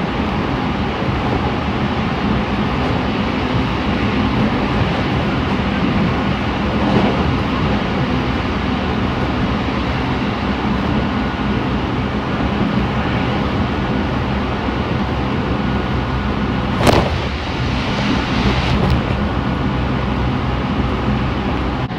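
Train running at its top speed of 120 km/h, heard from inside the passenger car: a steady rumble of wheels on rail with a low hum underneath. A brief loud burst about three-quarters of the way through, and a smaller one just after it.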